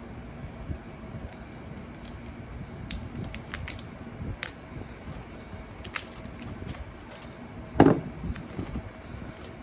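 Scattered sharp clicks and snips of hand tools working the cut copper windings of a refrigerator compressor's motor, with one louder knock near the end, over a faint steady hum.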